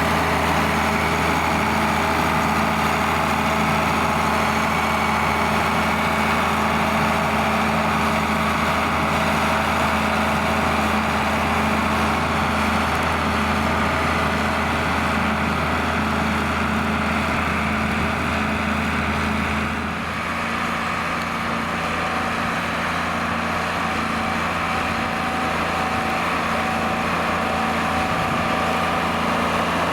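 John Deere 4850 tractor's six-cylinder diesel engine running steadily while pulling a six-furrow plough. The engine note changes abruptly about two-thirds of the way through.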